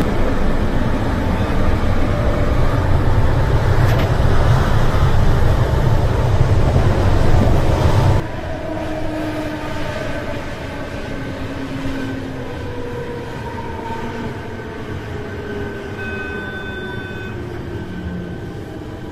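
A CityElefant electric train running, heard from inside the driver's cab: a heavy low rumble that drops away abruptly about eight seconds in, after which it runs quieter with several slowly falling whines. A brief steady high tone sounds near the end.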